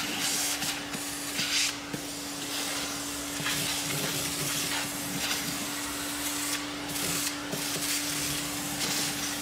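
Vacuum cleaner running steadily, a constant motor hum under the rush of air through its hose, as the nozzle sucks up scraped tile-mortar dust and chips from the subfloor. A few faint clicks of grit are heard going up the hose.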